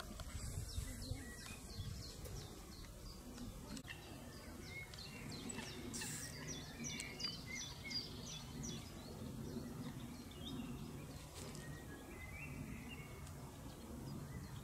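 Lakeside ambience with songbirds singing: runs of quick, repeated high chirps, thickest in the middle, over a low steady background rumble.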